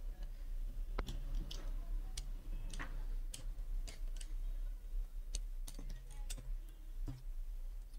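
Scattered faint clicks and taps at irregular intervals, from tailoring tools and cloth being handled on a cutting table.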